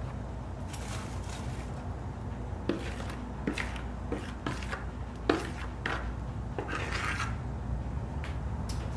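A metal spoon scraping thick cornbread batter out of a plastic mixing bowl into a disposable aluminium foil pan. A string of light taps and scrapes comes through the middle, over a steady low hum.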